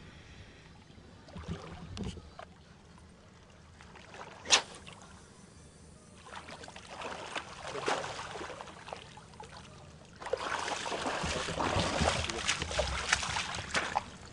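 Water splashing as a hooked carp thrashes in a landing net in shallow lake water, starting about six seconds in and turning louder and choppier after about ten seconds. A single sharp click about four and a half seconds in.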